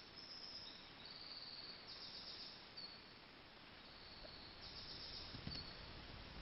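Faint woodland ambience of thin, high-pitched chirps and short trills repeating over a low hiss. There is a brief soft rustle about five seconds in.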